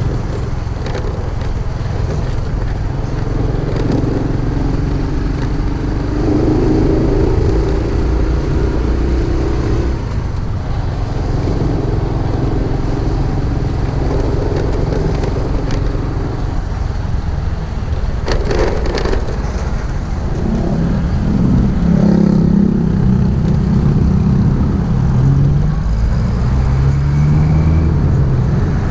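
Motorcycle engine running on the road, its note rising and falling with the revs and dropping lower in the second half, under heavy wind rush on the microphone.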